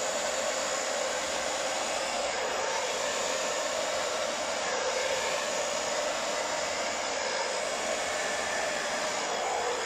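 Handheld hair dryer fitted with a concentrator nozzle, running steadily as it blows onto wet acrylic paint: a continuous rush of air with a faint motor whine, unbroken and even in level.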